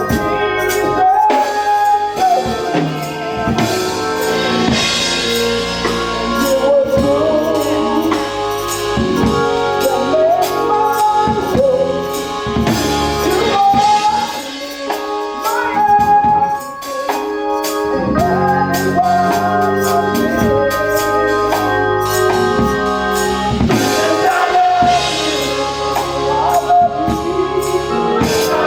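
Gospel music: singing over organ with drums and tambourine keeping a steady beat.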